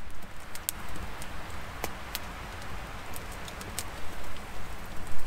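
Wood campfire crackling, with sharp pops and snaps coming at irregular moments over a steady rushing hiss.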